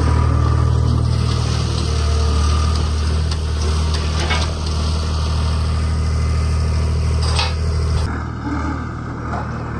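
A steady low engine hum that drops away sharply about eight seconds in, with a couple of light clinks over it.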